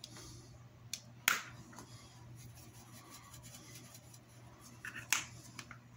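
A few short, sharp clicks and taps from a tin of ground black pepper being handled and shaken over a salad bowl, the loudest about a second in and again near the end, over a faint steady low hum.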